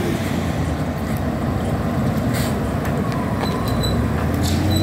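Diesel buses and cars idling and creeping in slow street traffic: a steady low engine noise, with a faint engine tone gliding slowly upward near the end.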